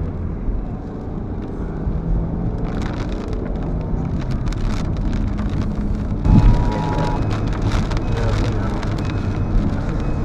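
Car interior noise while driving slowly: a steady engine and road rumble. From about three seconds in, sharp spatters of rain and wind gusts hit the car. A little past six seconds there is a thump, followed by a short beep lasting about a second.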